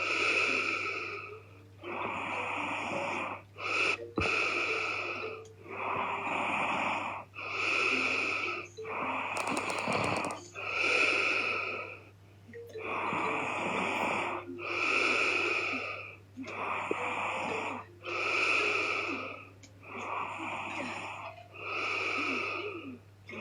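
A woman snoring heavily in her sleep. Each breath, in and out, is a rasping, wheezy snore about a second long, one following another roughly every one and a half seconds, over a steady low hum.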